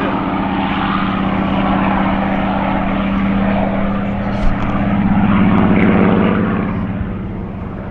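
Supermarine Spitfire Mk XIV's Rolls-Royce Griffon V12 engine and propeller running at power as the fighter flies aerobatics overhead. The engine note swells about five seconds in, then eases off near the end.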